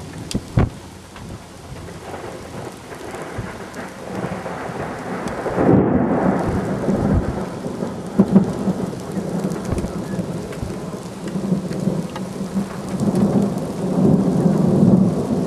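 Thunder rumbling and rolling over steady rain, swelling about five seconds in and again near the end. Two sharp knocks sound just after the start.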